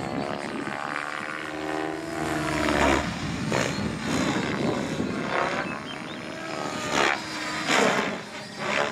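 Thunder Tiger Raptor E700 electric RC helicopter on Zeal Energy rotor blades flying aerobatics overhead. Its rotor and motor give a pitched hum that bends up and down as the headspeed and load change. It is broken by about half a dozen short, loud swells of blade noise as the rotor is loaded in manoeuvres.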